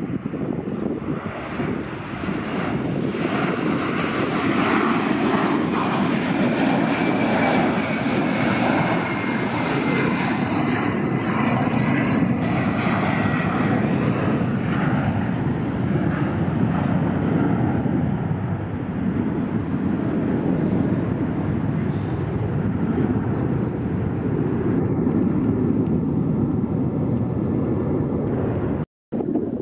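Twin-engine jet airliner climbing out after takeoff, its jet engines giving a steady loud rush, with a faint whine sliding down in pitch over several seconds. The sound cuts out for a moment near the end.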